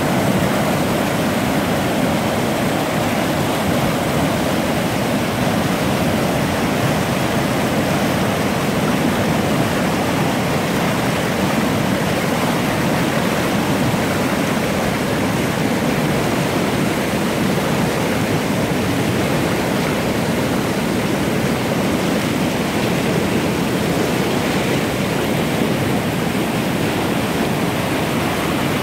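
Snowmelt-swollen mountain river rushing over rocks as whitewater, a loud and steady noise.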